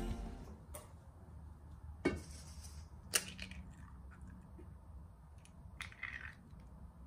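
Eggs being cracked and separated over stainless steel bowls: a few short sharp clicks and taps of eggshell, the loudest about two seconds in.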